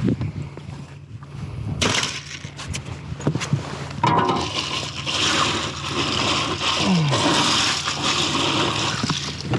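Water rushing and splashing for the last five seconds or so, after a few seconds of scattered knocks and handling clatter, with a steady low hum underneath. This fits a kept perch being put into water on the boat.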